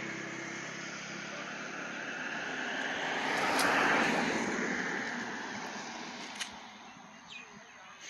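A vehicle passing by: a rushing noise that swells to its loudest about four seconds in, then fades away.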